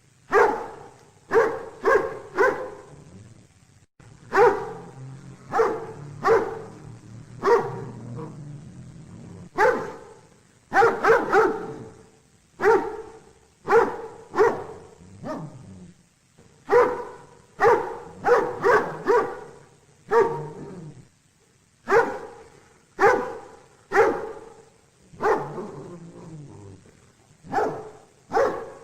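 A dog barking repeatedly in quick runs of two to four barks, with short pauses between the runs.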